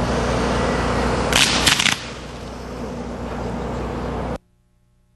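Firework going off: a loud hiss with a quick cluster of sharp bangs a little over a second in, then a lower hiss that cuts off suddenly.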